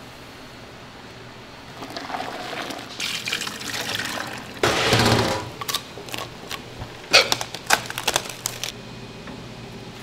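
Liquid ice cream base being poured through a mesh strainer into a stainless steel pot, the splashing building to a loud peak about five seconds in. Then a run of sharp metal clinks and knocks as a stainless steel pan is handled.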